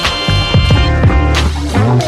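Upbeat music with a bass line and a steady beat.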